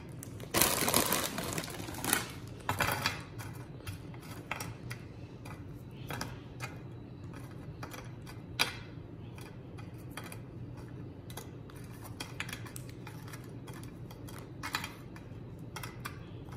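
Vanilla wafer cookies being set down one at a time in a glass baking dish: light, uneven clicks and taps of the cookies on the glass and on each other. A louder rustle comes about half a second in.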